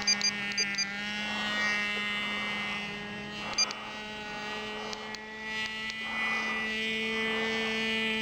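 Engine of a SPAD-type radio-controlled model airplane in flight, a steady high buzz heard from the ground, its pitch rising slightly about six seconds in.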